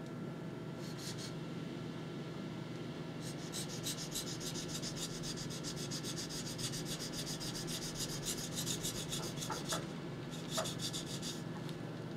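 Steel knife blade scraped back and forth on a wet 1200-grit whetstone: rapid sharpening strokes, a short burst about a second in, a long run of quick strokes from about three to nine seconds, and another short burst near the end. The blade is being ground from a double to a single bevel.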